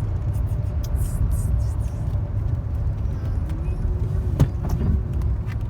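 Road and engine noise inside a moving car's cabin: a steady low rumble, with one sharp click about four and a half seconds in.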